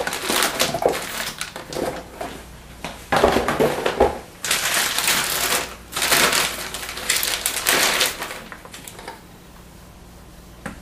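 Clear anti-static plastic bag crinkling and rustling in irregular bursts as the motherboard is handled, pulled from its cardboard box and slid out of the bag. The rustling stops about nine seconds in.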